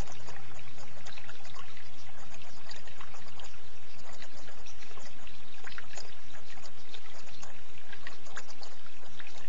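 Running water trickling steadily, a continuous rush dotted with many tiny splashes.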